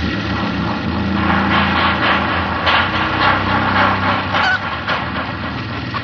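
Horror-soundtrack effects mix: a low, steady, motor-like drone with harsh honking, screeching noises layered over it from about a second in.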